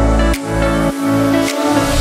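Electronic background music with sustained bass and synth notes; its steady kick-drum beat drops out for a moment and comes back at the very end.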